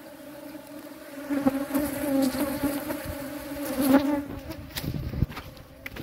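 A swarm of angry ground-nesting wasps buzzing around their freshly dug-out nest: a steady low drone that swells loud about a second and a half in. Near the end it gives way to rustling and sharp knocks.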